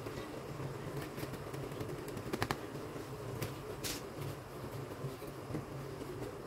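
Boiled rice tipped into an aluminium pot and spread with a wooden spoon: soft rustling with a few light knocks, the loudest a quick cluster about two and a half seconds in, over a steady low hum.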